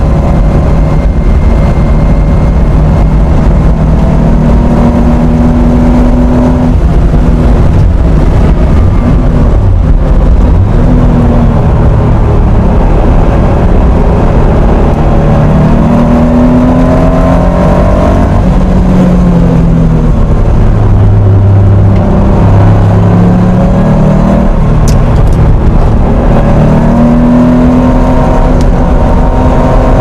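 1980 Porsche 911 SC's air-cooled 3.0-litre flat-six at racing speed, heard from inside the cabin: the engine note climbs and drops again several times as the car accelerates, shifts and lifts through the corners, over steady wind and road noise.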